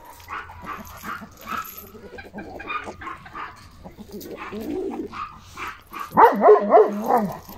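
Large dog barking, with a quick run of loud barks near the end, while chickens cluck in the background.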